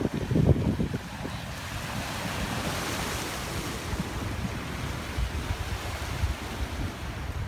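Choppy river water washing and breaking against a rocky bank, a steady hiss that swells around the middle. Wind buffets the microphone, heavily in the first second and in low gusts after.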